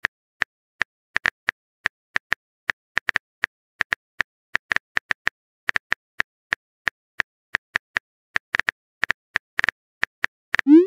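Phone-keyboard typing sound effect from a texting-story app: quick, irregular taps, about two to four a second, as a message is typed out. Just before the end comes a short rising swoosh, the sound of the message being sent.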